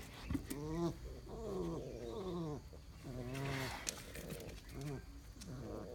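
A dog whining: about six short, low whines, each rising and then falling in pitch.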